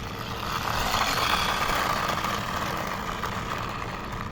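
Water swishing and churning as a toy dump truck is pushed by hand through it, swelling about a second in and easing off toward the end.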